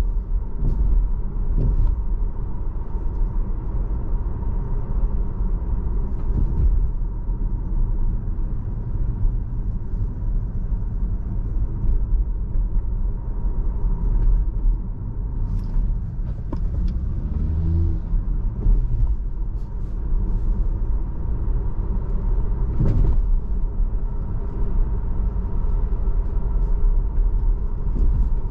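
Steady low road and tyre rumble of a Tesla driving through city streets. A faint steady hum runs underneath, and a short rising-then-falling tone comes about two-thirds of the way through, with a few light clicks.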